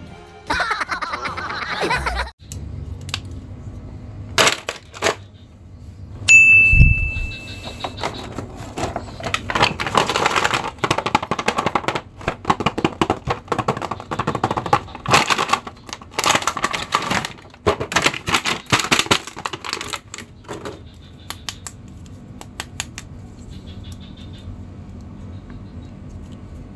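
Plastic and cardboard packaging of an action-figure box crinkling and crackling in dense rapid clicks as it is handled and opened. A short high tone with a low thump about six seconds in.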